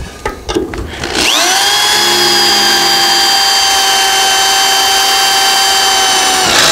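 A few light knocks, then a corded power drill spins up about a second in and runs with a steady whine, drilling a hole through an aluminium loading ramp.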